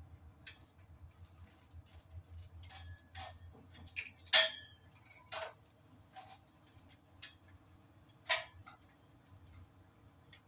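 Scattered, irregular metal clicks and clinks of hand tools at work, the sharpest about four seconds in and again a little past eight seconds.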